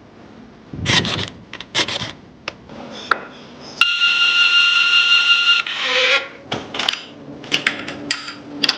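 Workshop hand work on engine parts: irregular rubbing and scraping strokes with knocks, and a power tool running with a steady high whine for about two seconds in the middle.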